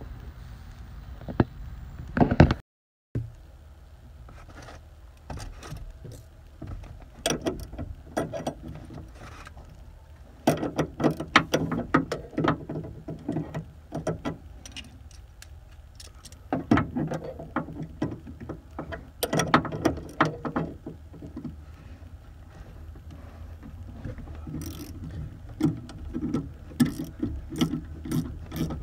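Metal hand tools clicking and clanking on the rear shock absorber's top nut as it is worked loose with locking pliers and a wrench, with quicker regular ratchet clicks near the end. A loud knock about two seconds in.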